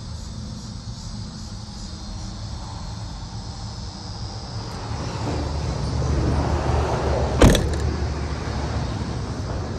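A 2008 Toyota RAV4 idling with a steady low hum. Partway through, outside traffic noise swells, and late on a car door shuts once with a sharp thud.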